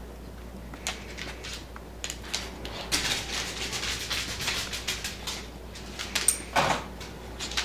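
A dog scuffling on a hardwood floor as it mouths and drags a cloth: scattered claw clicks and taps, a stretch of fabric rustling and scraping about three seconds in, and a louder scuffle near the end.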